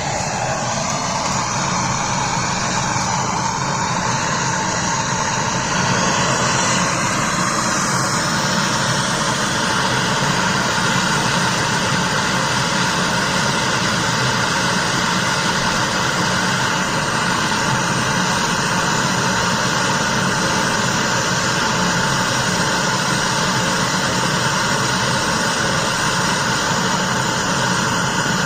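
Brazing torch flame burning with a loud steady rush as a copper pipe joint on a refrigerator's freezer line is brazed. The pitch wavers for the first several seconds, then the rush holds steady.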